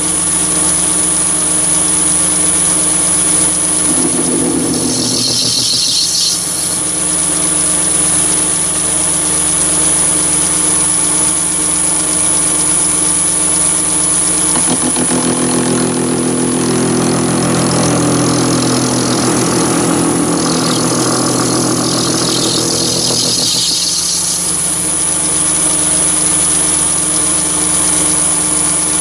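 Mini lathe running steadily at 920 rpm with a constant high whine, while a 2 mm grooving tool cuts grooves into a spinning brass rod. The cuts bring a high-pitched scraping squeal about five seconds in, and again for a few seconds about twenty seconds in.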